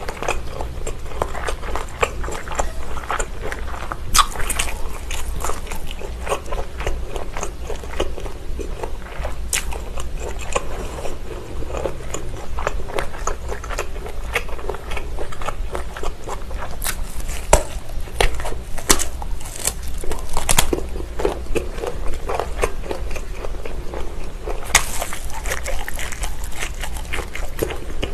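Close-miked eating of linked Vienna sausages: bites through the casings and steady chewing, with many sharp mouth clicks throughout and a few louder snaps.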